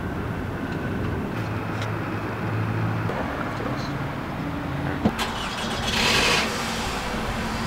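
Curbside traffic noise, with a car engine running steadily. There is a sharp click about five seconds in and a short hiss about a second later.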